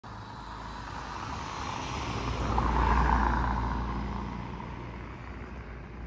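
A motor vehicle passes close by on a city street, its sound swelling to a peak about halfway and then fading, over a steady low rumble of traffic.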